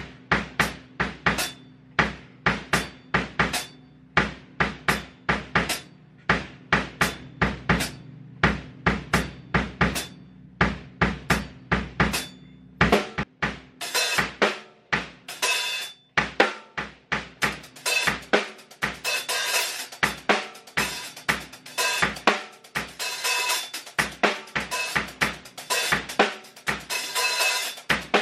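Mapex Saturn drum kit played through a song section: a steady beat of kick and snare hits, about two to three a second, with cymbals joining about halfway through as the groove gets busier.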